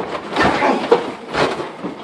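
Three thumps from wrestlers hitting each other or the ring, over a noisy hubbub.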